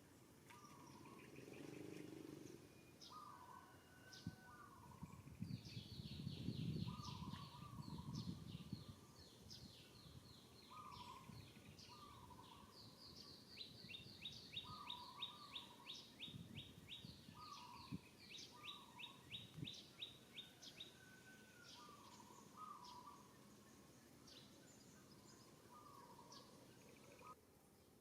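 Faint birdsong: a short call repeated every second or two, with rapid high trills of evenly spaced notes through the middle, over low background rumble that swells a few seconds in.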